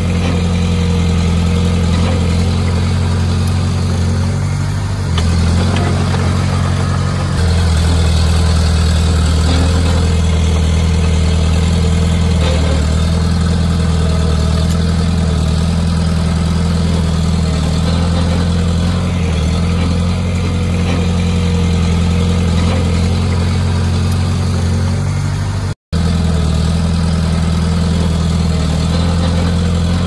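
Heavy earthmoving machinery's diesel engine running steadily with a deep drone, getting louder about seven seconds in. The sound cuts out for an instant near the end.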